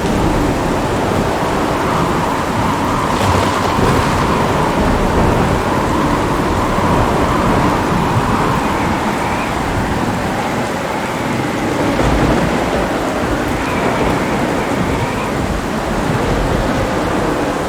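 Heavy rain pouring steadily, with thunder rumbling through it, plus one sharper crackle about three seconds in.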